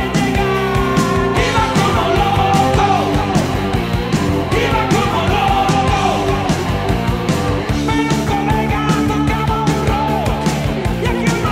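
Background music: a rock song with a singing voice over a steady drum beat.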